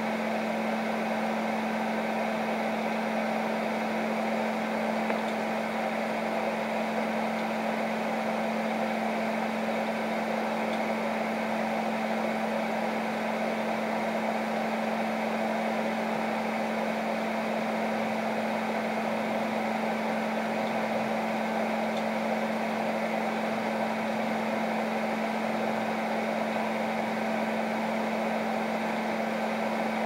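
Microwave oven running: a steady low hum over an even rushing noise.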